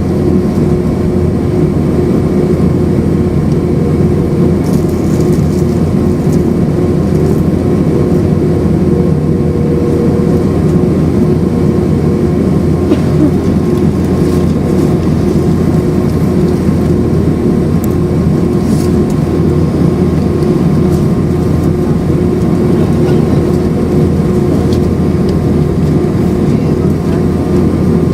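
Inside the cabin of an Airbus A319, its IAE V2500 jet engines running steadily with a constant hum of several fixed tones over a low rumble.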